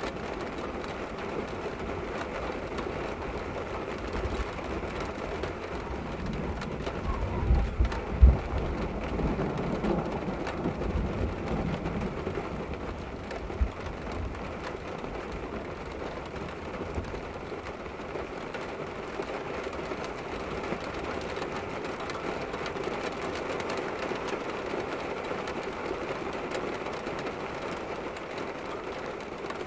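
Heavy storm rain hissing steadily on window glass. Several seconds in, a low rumble swells for a few seconds with a couple of louder peaks. A single sharp tap comes a little later.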